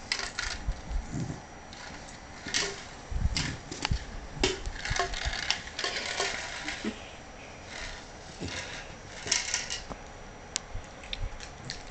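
Miniature schnauzer nosing a plastic cup about on carpet to get pretzels out of it: irregular plastic clicks, knocks and rustles as the cup tips and rolls.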